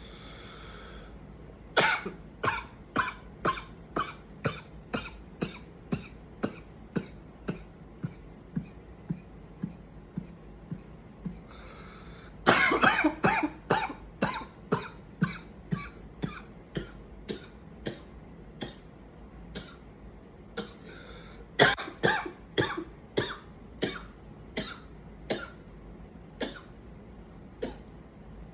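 A man coughing in three long fits. Each fit opens with a loud burst and trails off into a string of short, weaker coughs, about two a second, with a quick breath drawn in before the fits.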